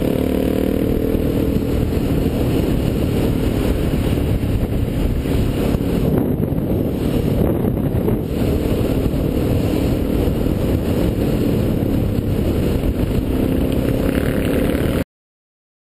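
Wind rushing over a motorcycle-mounted camera at road speed, with the motorcycle's engine running underneath. The engine pitch glides briefly near the start and again near the end. The sound cuts out abruptly about a second before the end.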